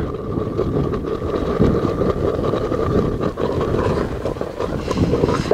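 Wind buffeting the microphone in the open: a steady low rumble.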